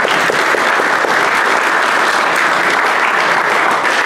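Audience applauding steadily, a dense wash of many hands clapping together.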